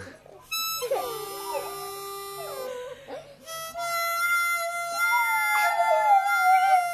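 Harmonica playing long held notes while a boxer puppy howls along, its cries sliding and wavering in pitch over the notes. The harmonica breaks off briefly near the start and again about three seconds in.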